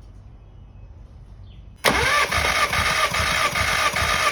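Starter motor cranking a VW Scirocco engine for a wet compression test, with oil added to the cylinder to tell worn piston rings from leaking valves or head gasket. It cuts in suddenly about two seconds in, a steady starter whine with the engine's compression strokes pulsing about three times a second.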